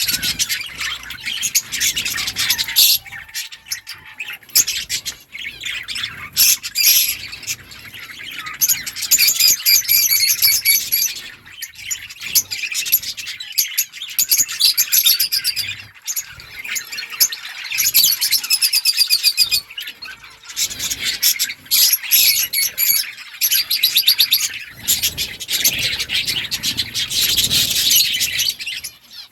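Budgerigars chattering and warbling together in a flock, with rapid overlapping chirps that come in bouts with brief pauses.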